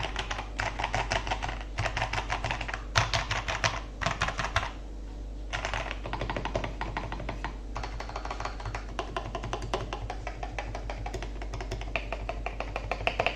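Mechanical keyboard with stock, unlubed Akko CS Jelly Black linear switches and Cherry-profile keycaps being typed on in quick runs of keystrokes with brief pauses between them. The keystrokes sound loud, crisp and tight.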